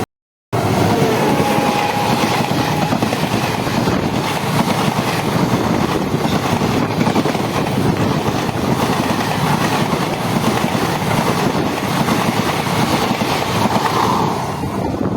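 Intercity express train passing at speed, its coaches' wheels clattering over the rail joints in a loud continuous rush that falls away near the end. The sound cuts in after a brief silence at the very start.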